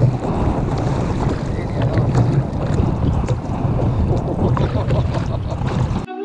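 Wind blowing on the microphone over water lapping against a sit-on-top kayak, with a few faint clicks. Near the end it cuts sharply to guitar music.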